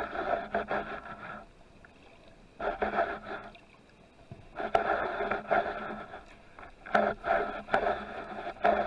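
Underwater handling noise on a speargun-mounted camera: irregular bursts of scraping and water rush as the gun moves through the water.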